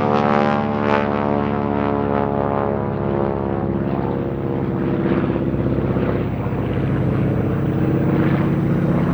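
Propeller airplane flying overhead, its engine droning steadily.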